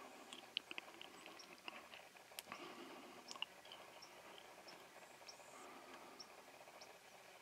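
Near silence, with faint scattered clicks and ticks at irregular intervals.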